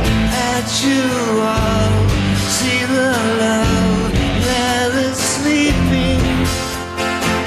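Live rock band playing a slow song, with guitars, bass and drums and a wavering vocal or lead guitar line over them.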